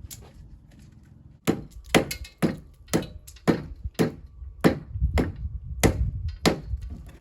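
Hammer blows: about ten sharp strikes, roughly two a second, starting about a second and a half in, each ringing briefly.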